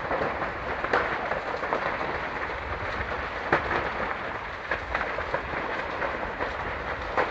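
A large building fire burning: a steady rushing noise with frequent sharp cracks and pops scattered through it.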